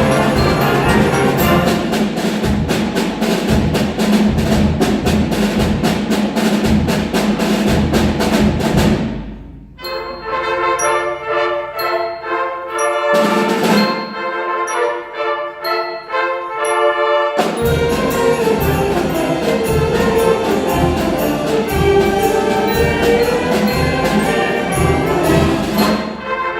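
A high school concert band playing a Christmas arrangement: brass and percussion at full volume, breaking off about nine seconds in to a softer passage of held chords, then the full band with drums coming back in about eight seconds later.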